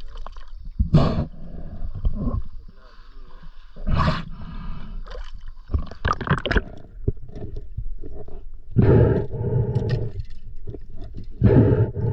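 Muffled water noise and gurgling around a camera held at and under the water's surface, broken by loud rumbling bursts every two to three seconds.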